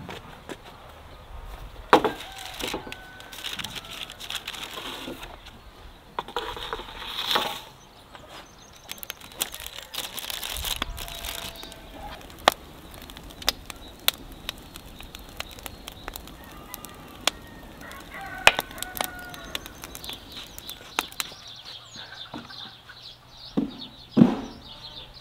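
Chickens calling in short clucks, with scattered sharp clicks and a few louder knocks.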